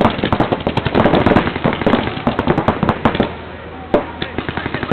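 Paintball markers firing rapid strings of shots, many overlapping sharp pops. The shooting thins out about three seconds in, with a single louder pop near the end.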